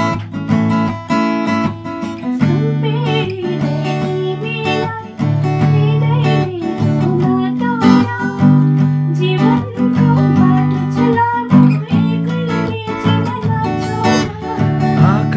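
Acoustic guitar strummed in chords, with a man singing a melody over it.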